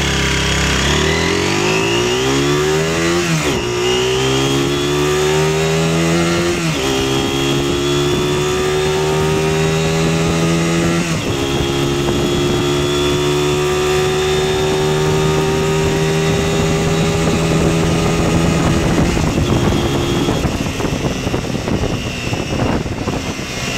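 MZ RT-125 motorcycle's 125 cc single-cylinder engine accelerating hard through the gears. Its pitch rises in each gear and drops at three upshifts, about 3, 7 and 11 seconds in. It then holds a steady note at cruising speed before the note fades as the throttle is rolled off near the end.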